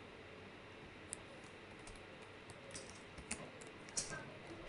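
Typing on a computer keyboard: a scattered run of faint key clicks, with a few louder ones near the end.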